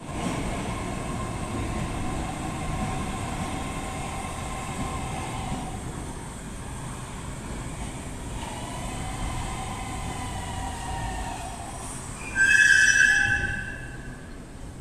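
Metro trains running through the station with a steady low rumble and a whining motor note that fades out and comes back. Near the end a loud, high-pitched squeal lasts about a second.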